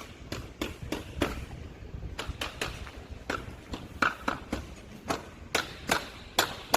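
A run of irregular sharp knocks and clicks, about two or three a second, over a low rumble.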